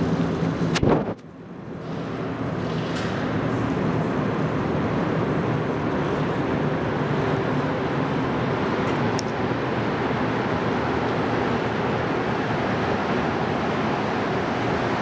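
Rubber-tyred Montreal Metro train approaching through the tunnel: a steady rumble echoing in the station. After a sharp click about a second in it swells over a few seconds, then holds steady.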